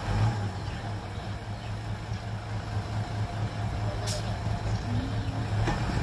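Dump truck's diesel engine running steadily with the tipper bed raised, as its load of soil and rocks slides off the back onto the pile. A single sharp click about four seconds in.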